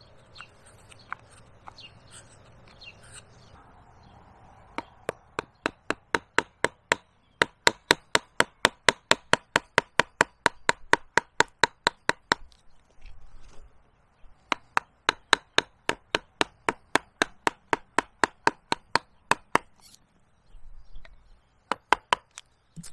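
Wooden carving mallet rapidly tapping a number 8 carving gouge into the living wood of a tree, about five blows a second, cutting out the eye sockets. The blows come in two long runs separated by a short pause, with two more blows near the end.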